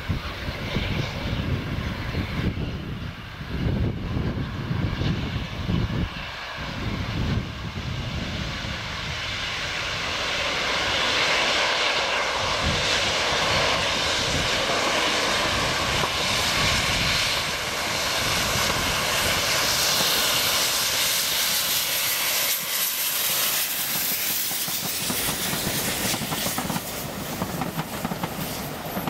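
GWR Collett 0-6-0 steam locomotive No. 3205 working a passenger train toward and past the listener. The sound swells about ten seconds in as the engine comes close, then eases slightly as the coaches roll by near the end.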